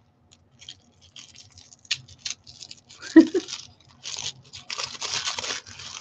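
Small packaging being handled and unwrapped by hand: scattered light crackles and clicks, then denser rustling and crinkling over the last two seconds. A brief murmur of voice comes about halfway through.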